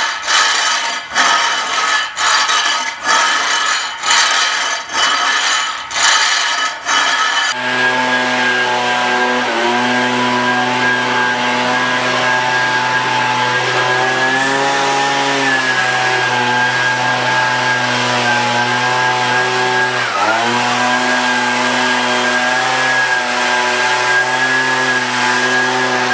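A long-handled flat scraper rasps across a hardened epoxy pebble-stone floor in about one stroke a second, loosening stray pebbles. About seven seconds in, a gas handheld leaf blower takes over and runs steadily, blowing the loose pebbles off the floor. Its pitch shifts briefly twice with the throttle.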